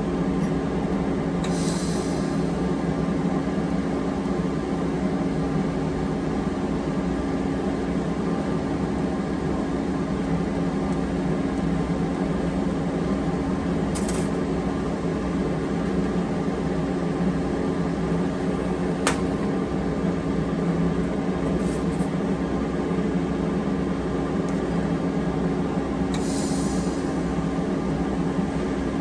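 Steady electrical hum and buzz of a TIG welder welding stainless steel with 308 filler rod, with a brief high hiss a few times.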